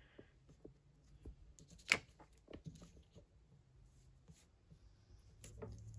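Faint handling of paper stickers on a planner page: small scattered ticks and rustles as letter stickers are peeled and pressed down, with one sharper click about two seconds in. A low steady hum comes in near the end.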